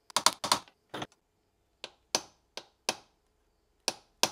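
About ten light, sharp metal taps at uneven spacing as a brass drift is worked against the taper pin in the lead-screw collar of a metal shaper.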